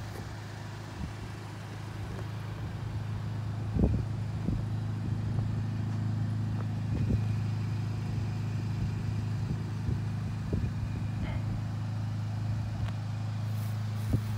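MK7 Volkswagen GTI's 2.0-litre turbocharged four-cylinder idling with a steady low hum that grows fuller from about four seconds in. A light knock comes at about the same point.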